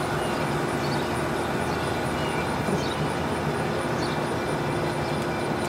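Steady outdoor background rumble with a low mechanical hum running through it, with a faint high ticking about four times a second.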